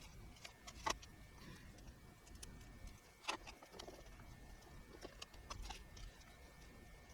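Faint scattered clicks and taps of small hardware being handled, with two sharper knocks about a second and three seconds in, over a faint steady high tone.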